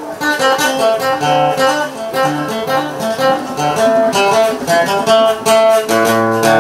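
Acoustic guitar picking a melody over djembe hand drumming.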